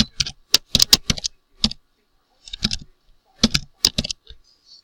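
Computer keyboard being typed on: quick runs of key clicks, with a short pause a little before halfway.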